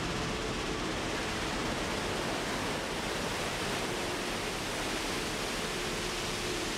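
Steady rush of water as a gravel dredger's clamshell grab, just closed on the lake bed, is hoisted out of the lake with water streaming from its jaws, over a faint steady machinery hum.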